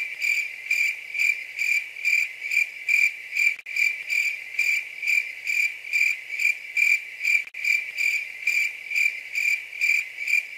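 Steady, high-pitched insect chirping, about three chirps a second, broken by a brief gap roughly every four seconds.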